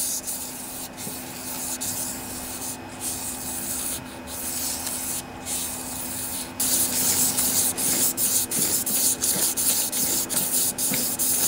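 Fine sandpaper on a steel Briggs and Stratton crankshaft journal, rasping as a pull-start rope wrapped around it is pulled back and forth, with a short break at each change of direction. It gets louder and faster from about halfway in. The journal is being smoothed to remove aluminum that melted onto it when the rod broke.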